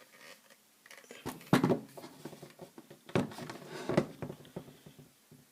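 Handling noise from a Ruger Mini 14 rifle being turned around: knocks and rubbing, loudest in two bursts about a second and a half in and again around three to four seconds in, with lighter clicks between.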